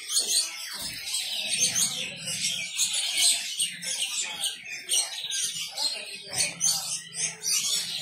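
Many caged songbirds chirping and whistling at once, a dense overlapping chorus of short high calls with no pause.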